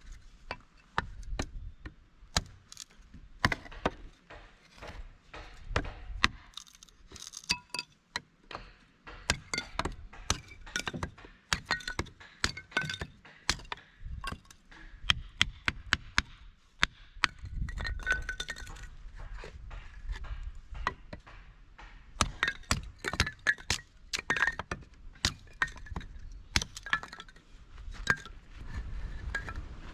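Irregular sharp clinks and knocks of hard objects being handled, many of them with a brief ringing note.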